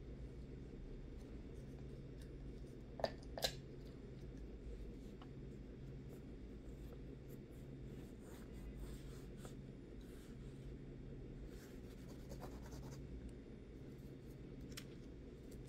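Faint scratching and rubbing of nail-stamping work on a metal stamping plate, with two sharp clicks about three seconds in, over a steady low hum.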